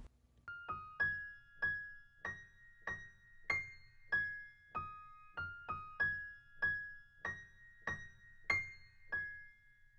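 Outro music: a slow, simple melody of single high keyboard notes, about two a second, each struck and fading away.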